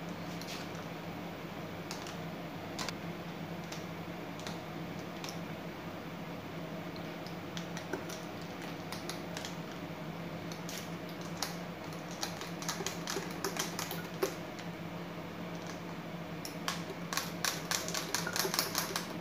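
A metal spoon stirring cold coffee in a glass, clinking against the glass and ice cubes: scattered clinks at first, coming faster and thicker near the end, over a steady low hum.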